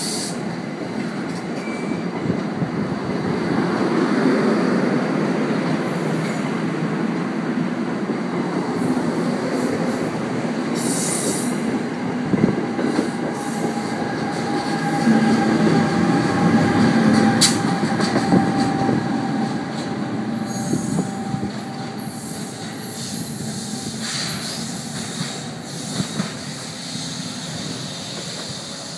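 NJ Transit North Jersey Coast Line push-pull train pulling out, made up of Comet V coaches with an ALP-46A electric locomotive pushing at the rear. Its wheels rumble steadily on the rails with clicks over the rail joints, and a thin squeal comes in about midway as the locomotive passes. The sound fades toward the end as the train moves away.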